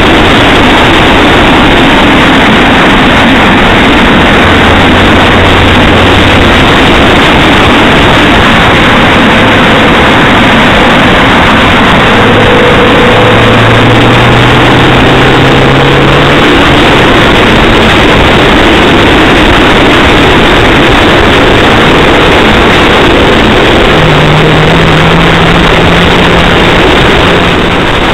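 Cabin noise of a Ford Focus driving along, picked up by a dashcam: a loud, even rush of road noise with a low engine hum underneath that shifts in pitch now and then.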